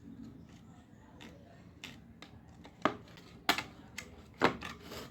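Hard clicks and knocks from handling a small plastic Bluetooth speaker and tools on a workbench: a few soft taps, then three louder knocks spaced about half a second to a second apart in the second half.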